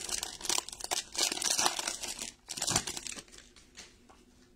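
The foil wrapper of a Donruss football card pack crinkling as it is torn open by hand, in a run of quick bursts that die away about three seconds in.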